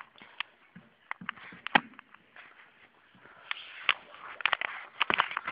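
Handling noise from a handheld camera: irregular clicks and taps, with rubbing against the microphone that gets busier about three seconds in.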